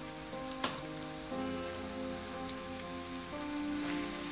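Minced garlic sizzling in oil in a frying pan, a steady hiss, under soft background music. There is one sharp click a little over half a second in.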